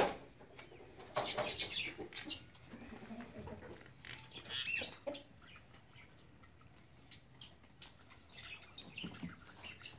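Chickens clucking and calling on and off, after a sharp knock at the very start.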